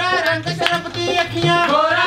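A Punjabi folk song: voices singing over a steady drum beat.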